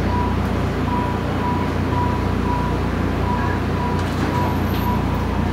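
Steady low hum of a subway rail car standing in a station with its doors open. Over it, a high electronic beep repeats a little more than twice a second, the car's warning signal while the doors stay open.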